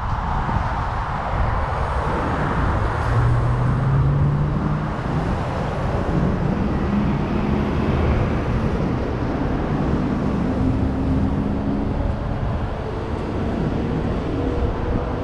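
A 2018 Nissan Armada driving slowly, recorded by a camera mounted outside the SUV: a steady low rumble of engine and tyres with wind on the microphone, and a few low engine hums that come and go.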